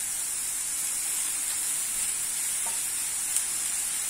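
Shredded chicken, grated carrots and onions sizzling in a frying pan: a steady, even hiss, with a faint tap about two and a half seconds in.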